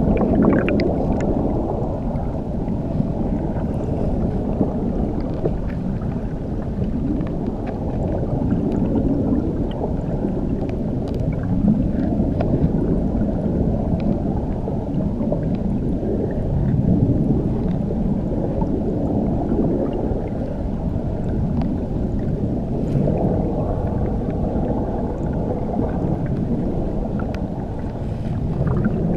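Underwater recording beneath a waterfall: a steady, muffled rush and rumble of falling water, all low-pitched and gently swelling, with faint clicks scattered through it.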